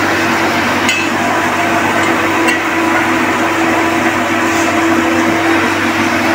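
Steady hum and hiss of workshop machinery, with two light metallic clinks, about one and two and a half seconds in, as the hoist chain and propeller are handled.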